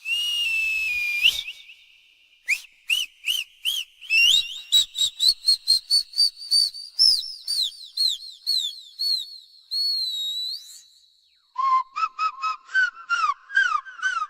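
High-pitched whistled chirps and squeaks that bend up and down in pitch, coming in quick runs of about three a second. The first second or so is a breathier, hissy whistle, and near the end the chirps drop to a lower pitch.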